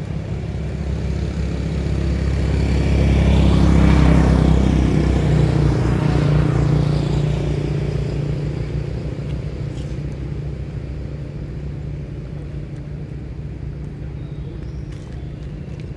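Motor vehicle going past on the road: engine and road noise swell to a peak about four seconds in, then fade slowly to a low steady rumble.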